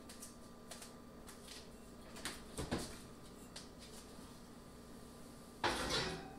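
A ceramic baking dish being put into an oven: a few light knocks and clicks, then a short scraping clatter near the end as the dish goes onto the metal oven rack.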